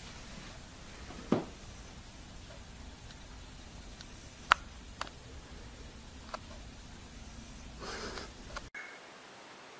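Steady room hiss with a few scattered taps and clicks: a dull thump about a second in, a sharp click, the loudest, about four and a half seconds in, and two fainter clicks after it. A short rustle comes near the end, then the sound cuts off suddenly to a quieter hiss.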